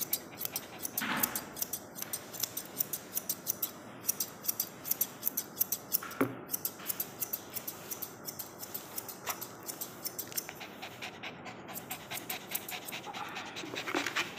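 Dog grooming shears snipping through a Shih Tzu's coat in quick, steady cuts, about four a second, with the dog panting.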